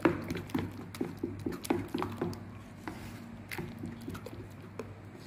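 A spoon stirring thick flour batter with chopped vegetables in a stainless-steel bowl: irregular wet squelching and light clicks of the spoon against the metal.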